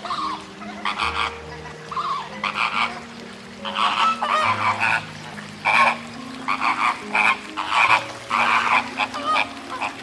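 Flock of flamingos calling: short honks repeating in quick runs, many birds overlapping.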